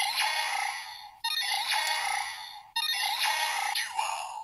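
DX Gashat Gear Dual toy (Knock Out Fighter side) playing a short electronic music sound effect through its small built-in speaker. The clip starts abruptly, fades, and restarts about every second and a half.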